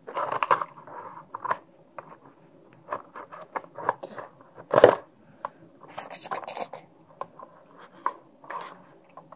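Scissors snipping and scraping at the top of a small cardboard blind box, with irregular clicks and rustles of the box being handled. One sharp click about halfway through is the loudest sound.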